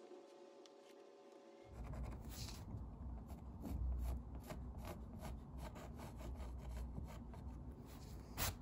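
Pencil sketching on a textured canvas: a quick run of short, scratchy strokes with a low rub of the hand beneath them, starting about two seconds in after a faint steady hum.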